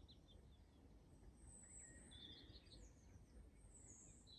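Near silence with faint birdsong: scattered high chirps and short trills over a quiet background hush.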